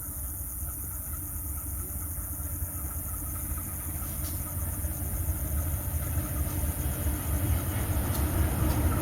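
Diesel locomotive of an approaching train: a low engine rumble that grows steadily louder.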